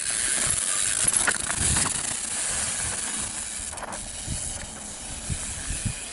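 Downhill mountain bike tearing through loose, dusty dirt: tyres skidding and spraying grit, with knocks and rattles from the bike. It is loudest at first and fades as the rider moves away.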